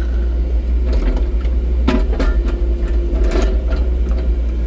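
Excavator diesel engine running with a steady hydraulic whine, heard muffled from inside the cab. A few sharp knocks sound over it, about two seconds in and again around three and a half seconds.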